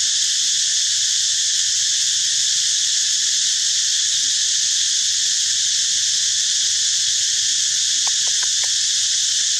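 Steady, high-pitched drone of a forest insect chorus, with a few faint short ticks about eight seconds in.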